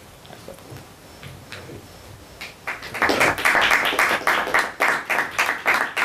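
Faint room noise, then about halfway in an audience breaks into applause, a dense patter of many hands clapping.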